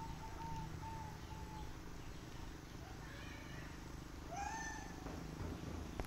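Tomcat meowing faintly a few times in short calls, the clearest a short rising meow about four and a half seconds in.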